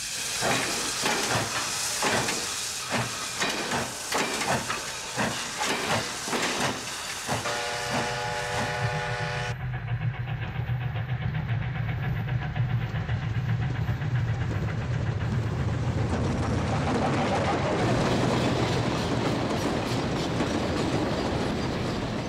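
Steam locomotive starting a train: a run of regular exhaust chuffs, then a steam whistle blowing for about two seconds near eight seconds in. The sound then changes abruptly to a steady low rumble of the train running.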